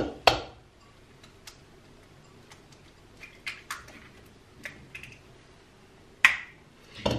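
An egg is cracked on the rim of a plastic blender beaker: two sharp taps, then faint scattered clicks of the shell being handled. A louder knock comes about six seconds in, and another near the end.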